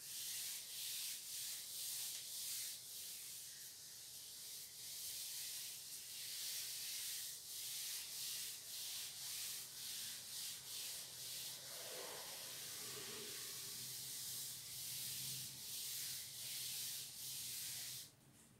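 Blackboard duster wiping chalk off a chalkboard in rapid back-and-forth strokes, a rhythmic rubbing of about two to three strokes a second that stops shortly before the end.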